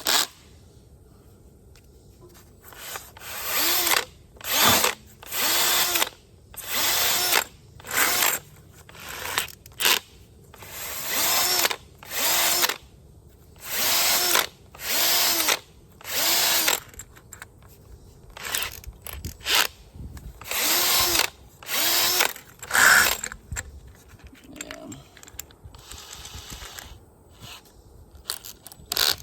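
Power drill spinning a Velcro sanding pad in a string of short bursts, about one a second, each starting and dying away quickly, as it sands curb rash out of an alloy wheel rim. The bursts stop near the end.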